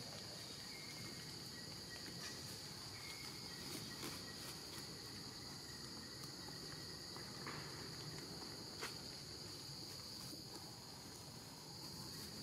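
Insects droning steadily in a high, even tone, over faint outdoor background noise.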